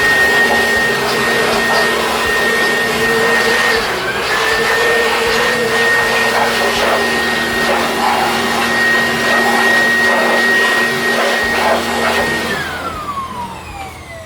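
2-in-1 air blower and vacuum running with a steady high whine over a loud rush of air; a few seconds in its speed dips briefly and picks up again. Near the end it is switched off and the whine falls away as the motor spins down.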